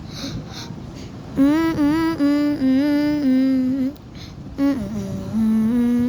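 A voice humming a simple tune in held, stepped notes, in two phrases with a short break between them.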